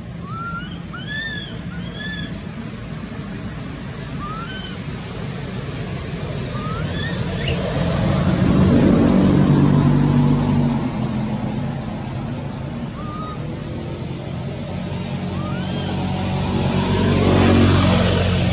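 Two road vehicles pass by, the engine noise building to a peak about nine seconds in and again near the end. Short arched chirping calls come and go over it.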